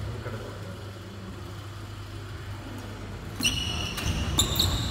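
A steady low hum, then about three and a half seconds in a badminton rally starts: sharp hits of racket on shuttlecock and high squeaks of sports shoes on the wooden court.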